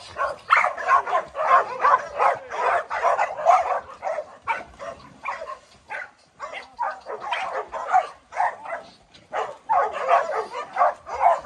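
A pack of dogs barking and yipping in quick, overlapping succession, with short lulls about halfway through and again near the end.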